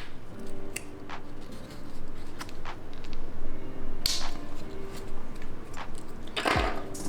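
Small plastic keycap packaging being handled: a few short crinkles and clicks, with a longer rustle near the end. Soft background music plays underneath.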